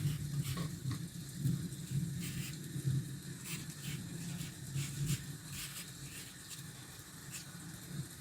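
Rain pattering, with a low rumble underneath and scattered sharp ticks.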